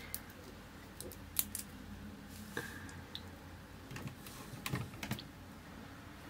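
Scattered small clicks and taps of a lipstick tube being handled and applied to the lips, about eight light clicks spread irregularly over a low room hum.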